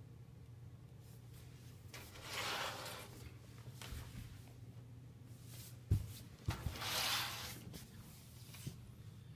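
Toastmaster 4434A 20-inch box fan's motor humming steadily at a low pitch. Twice the hum is joined by a swell of rushing, rubbing noise lasting about a second, and a couple of sharp clicks come about six seconds in.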